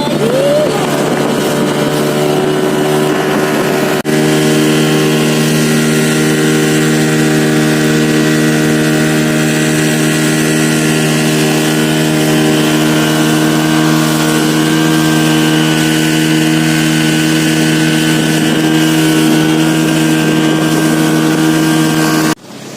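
Boat engine running at a steady speed, a constant drone. It jumps slightly louder about four seconds in and cuts off suddenly near the end.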